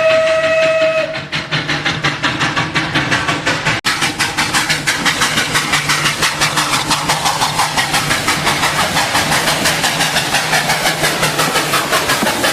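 Steam locomotive whistle blowing a steady tone for about a second, then the engine chuffing in a fast, even rhythm.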